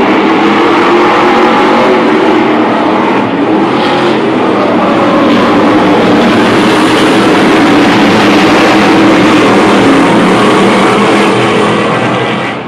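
A pack of Stadium Super Trucks racing past, many V8 engines running loud together, their overlapping pitches rising and falling as the trucks accelerate and pass.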